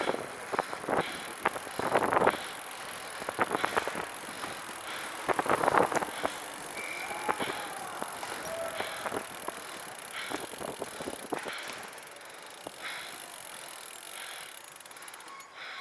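Recumbent trike rolling along a path: irregular clicks and rattles from the trike over the surface, loudest in two bursts early and midway, then growing quieter toward the end.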